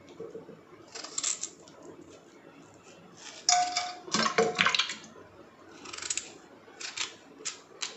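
A knife cutting a raw potato by hand, with the pieces dropping into a pressure cooker: scattered knocks and scrapes, the busiest stretch about halfway through with a short metallic ring from the pot.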